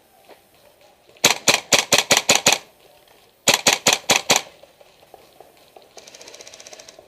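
Airsoft rifle fired in two quick strings of sharp shots, about six a second, the first about a second in and the second about halfway through, followed near the end by a faint fast run of shots.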